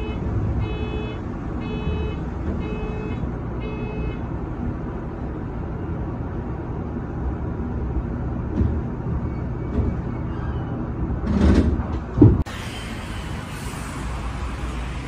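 Low, steady rumble inside the cab of a Shizuoka Railway A3000 electric train creeping into its terminal platform and coming to a stop. For the first few seconds a pitched electronic beep repeats about every 0.6 s, and a short, loud rush of noise comes just before twelve seconds in. After that the sound changes abruptly to a station concourse's hum.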